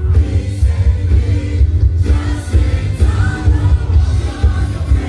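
Loud song with singing voices played over a loudspeaker sound system, with a heavy, booming bass.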